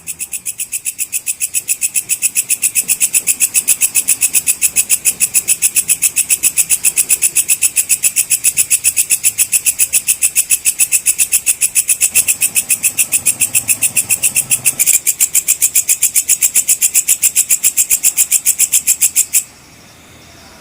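Walang kecek bush-cricket calling: a loud, fast, even train of high, buzzy chirp pulses, several a second, that stops abruptly near the end, leaving only a faint hiss.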